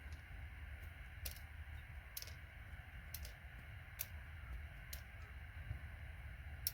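Sharp little metal clicks, about five of them a second or so apart, as side cutters grip and pull gold-plated pins out of a computer connector, over a low steady hum.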